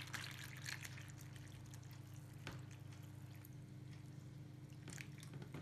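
Water pouring from a plastic bottle into a bowl that already holds some water: a faint, steady trickle and splash.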